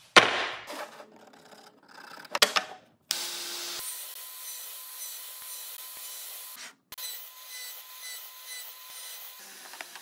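Pieces of wood knocked together twice with sharp clacks, then a miter saw running and cutting through wood, a steady high hiss that breaks off briefly about seven seconds in.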